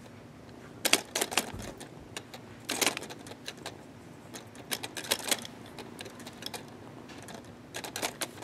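Irregular light plastic clicks and taps, some in quick clusters, as a kitten's paw bats the leaves of a small plastic dancing-flower toy.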